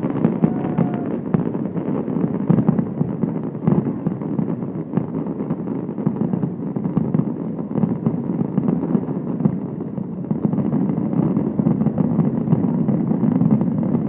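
Fireworks going off in quick succession: a continuous low rumble of booms, with a few sharper bangs about two and a half and three and a half seconds in.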